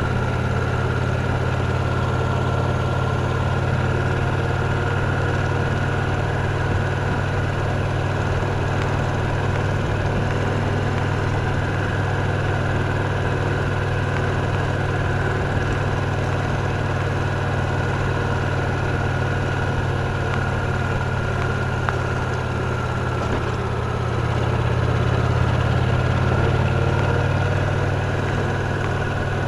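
Victory Cross Roads Classic LE motorcycle's 1700 cc V-twin engine running steadily with a low rumble, swelling a little louder about 25 seconds in.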